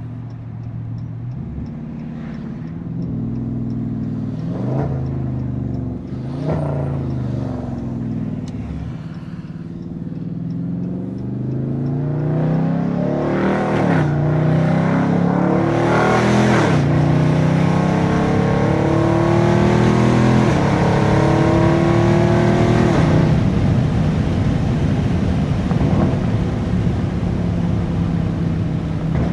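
Catless, tuned Dodge 392 Scat Pack 6.4-litre HEMI V8 driven hard. It makes a few short rises and falls in pitch, then gets louder from about twelve seconds as it accelerates through several gear changes, with the pitch climbing and dropping at each shift. It settles to a steadier note near the end.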